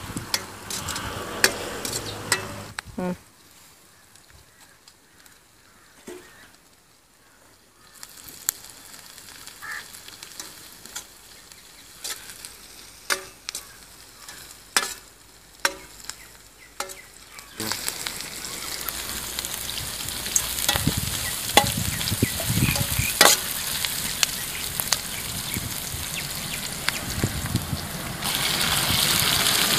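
Sliced onions sizzling in a metal kadai over a fire, with a metal ladle stirring and clacking sharply against the pan. The sizzle grows louder about two-thirds of the way in, and again near the end as chopped tomatoes and greens go into the hot pan.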